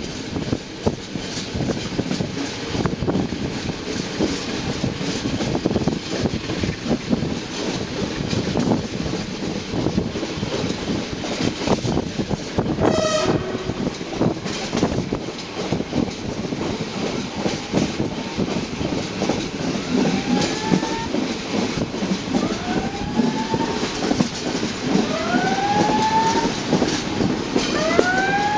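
Train running, heard from on board: a steady rumble of the wheels on the track. From about two-thirds of the way through, a string of short rising squeals repeats every second or two.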